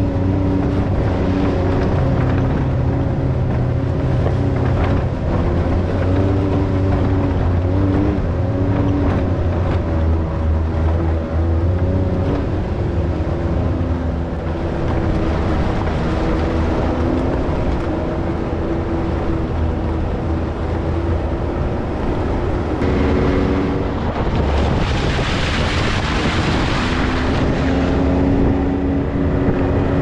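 Side-by-side off-road vehicle's engine running as it drives, its pitch shifting a little with the throttle over a heavy low rumble. Late on, a few seconds of rushing noise rise over the engine.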